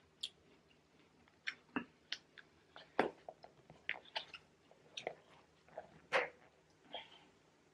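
Close-up chewing with wet mouth clicks and smacks, a dozen or so short sharp sounds at uneven intervals.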